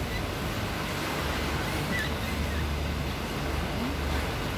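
Sea water washing and surging inside a rock sea cave, a steady rushing noise, with a low hum underneath.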